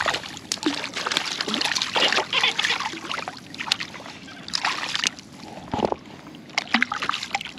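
Hooked speckled trout thrashing and splashing at the water's surface as it is brought to hand, in irregular splashes that are busiest in the first few seconds.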